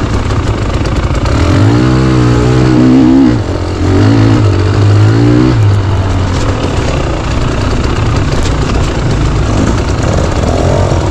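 Dirt bike engine running close, revving up in two rising pulls about two and four seconds in with a brief easing of the throttle between them, then running on more steadily.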